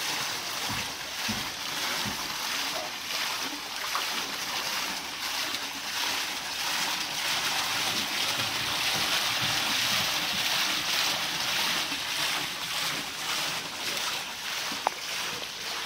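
Water pouring onto a wooden overshot water wheel and spilling off its buckets into the channel below: a steady rushing splash that swells a little in the middle. One sharp tick near the end.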